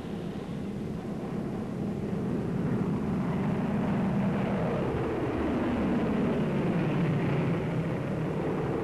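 Propeller warplanes' piston engines droning in an old newsreel recording. The sound grows louder over the first few seconds, with the engine pitch wavering.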